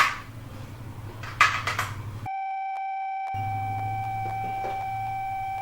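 Clicks of batteries being fitted into a carbon monoxide alarm, then the alarm sounding one continuous high-pitched tone from about two seconds in, the sign that it has detected carbon monoxide.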